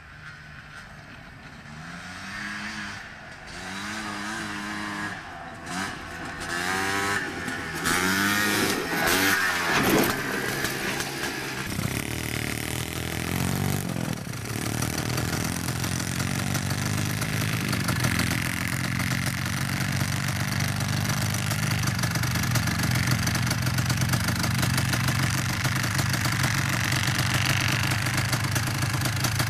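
ATV engine revving up and down in repeated rising and falling sweeps, then settling into a steady engine drone from about twelve seconds in that slowly grows louder.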